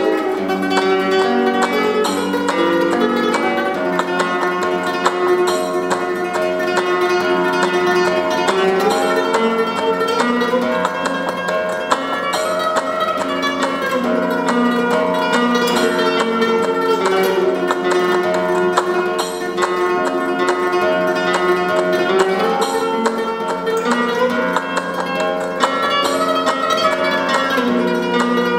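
Solo nylon-string flamenco guitar with a capo, played fingerstyle: a zambra melody in quick plucked notes, its runs rising and falling over a low note that rings underneath.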